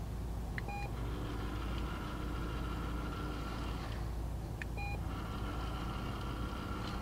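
Treat & Train remote treat dispenser beeping twice. Each short beep is followed by about three seconds of the dispenser's motor whirring as it turns to release treats. A low steady rumble runs underneath.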